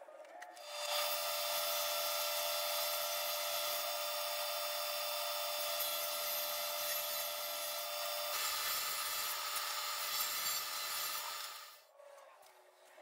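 SawStop 1.75 hp Professional Cabinet Saw running and ripping a long wooden strip: a steady blade whine under a dense cutting hiss, which cuts off suddenly near the end.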